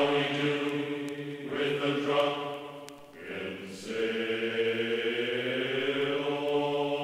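Background vocal music: chanting in long held notes that change pitch a few times, with a brief dip about three seconds in.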